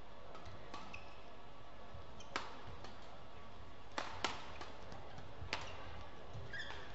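Badminton rackets hitting a shuttlecock in a doubles rally: a few sharp, short hits a second or more apart, two of them close together about four seconds in, over steady hall background noise.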